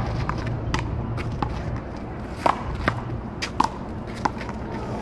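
Paddleball rally: a string of sharp, irregular smacks as paddles strike the rubber ball and the ball rebounds, with players' footsteps shuffling on the court and a steady low background hum.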